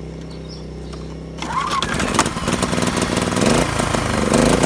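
Small portable inverter generator's petrol engine starting about a second and a half in and running up, its carburettor just cleared of rainwater. A second generator keeps up a steady hum underneath.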